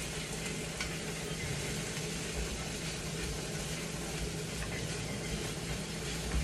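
Lamb and beef sizzling steadily in a non-stick copper frying pan over a gas burner, stirred with a spatula that gives a few light scrapes and taps against the pan. The meat is already cooked and is being reheated and browned.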